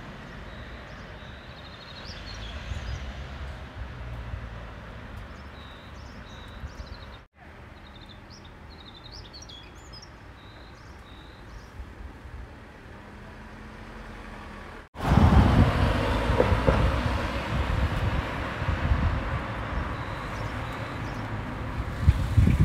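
Outdoor ambience: small birds chirping over a low rumble of wind and distant traffic. The sound cuts off abruptly twice. After the second cut, about 15 s in, a louder rush of wind buffets the microphone.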